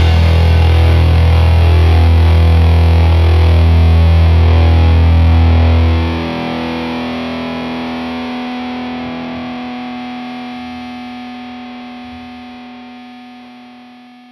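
Background rock music ending on a long held distorted guitar chord. The low bass drops out about six seconds in, and the chord then fades away.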